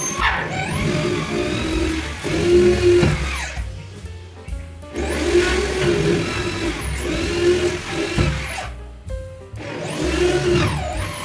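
Corded electric hand drill boring into a wooden flush door, run three times: each time the motor whine climbs as it spins up, holds high while cutting, and falls away as the trigger is released, the third run starting near the end.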